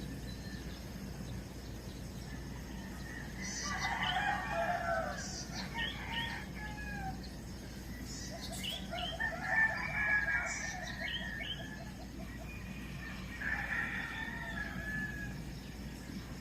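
Roosters crowing, three times, with smaller birds chirping in between, over a steady low hum.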